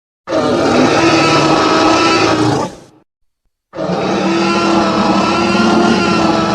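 Tyrannosaurus rex roar sound effect, given twice: two long, steady roars with a gap of dead silence between them, the second still going near the end.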